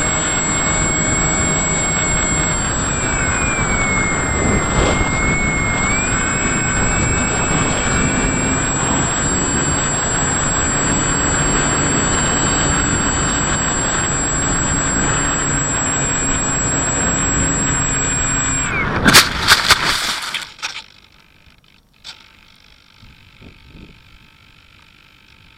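FPV model aircraft's motor and propeller whining, its pitch shifting a little, over heavy wind rush on the onboard camera. About three-quarters of the way through comes a short burst of loud knocks and rattles, after which the motor noise stops and only a faint low background remains.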